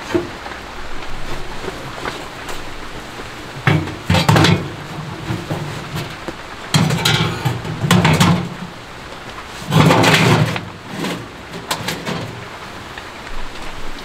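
Steady rain, with about four louder rushes of noise in the middle, each lasting under a second.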